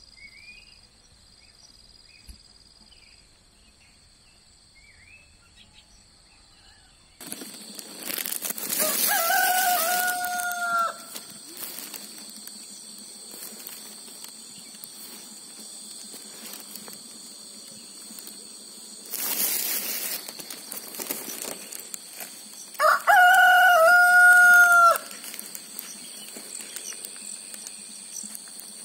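A rooster crowing twice, each crow about two seconds long, about nine seconds in and again about twenty-three seconds in, the second louder. Insects buzz steadily throughout.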